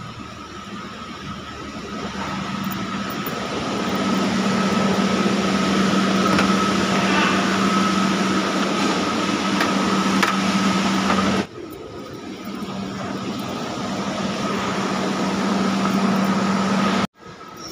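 Steady machinery running in a factory: a broad rush with a low hum and a thin higher whine. It builds over the first few seconds, cuts off abruptly about two-thirds of the way in, builds again, and stops sharply near the end.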